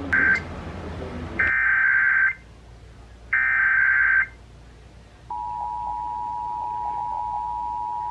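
Emergency Alert System digital data bursts: harsh, buzzy electronic screeches, first a short one, then two of about a second each with a second's gap between. About five seconds in they give way to the steady two-tone EAS attention signal, which opens a Required Monthly Test alert.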